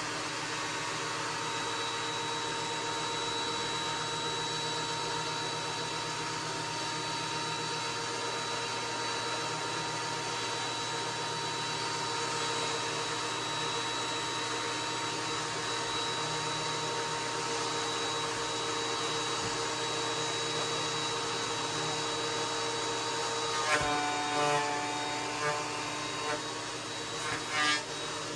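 Ridgid 13-inch thickness planer running steadily with a constant motor whine while a plank feeds through. About 24 seconds in there is a sharp knock, then several short louder bursts near the end.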